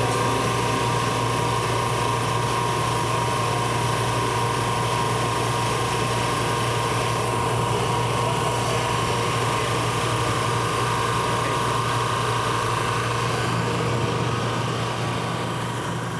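SuperMax 37x2 double drum sander running steadily as a twisted board feeds through under its sanding drums. The sound fades out near the end.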